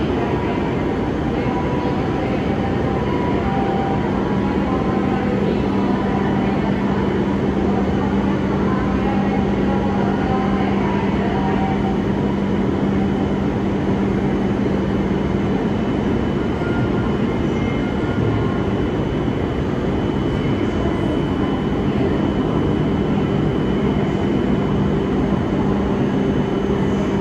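E5 series Shinkansen standing at the platform, its onboard equipment humming steadily, with a low steady tone coming in a couple of seconds in.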